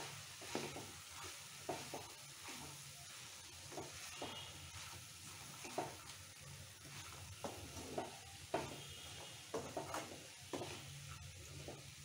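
Wooden spatula stirring chana dal and grated coconut in a kadai, irregular scrapes and taps against the pan over a soft sizzle. This is the final mixing of the dal-coconut curry.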